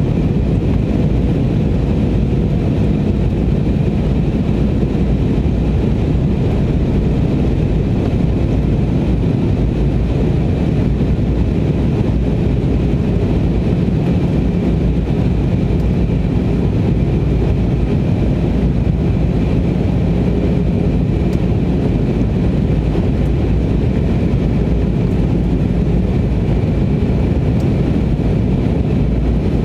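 Steady cabin roar of an Airbus A320-family jet airliner during its descent, heard from a window seat over the wing: engine noise and rushing airflow, with a faint steady hum under it.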